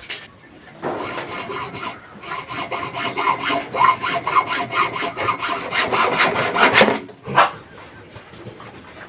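Hand saw cutting through wood in quick, repeated back-and-forth strokes, stopping about seven seconds in.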